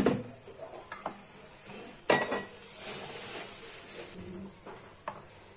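Utility sandwich grill toaster being shut: sharp plastic clacks of its lid and handle closing and latching, the loudest about two seconds in, with a soft sizzling hiss between them as the bread meets the hot plates.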